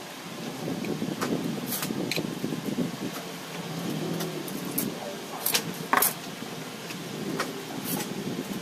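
Hand tools and small parts clicking and tapping now and then, over a steady low background noise; no engine is running.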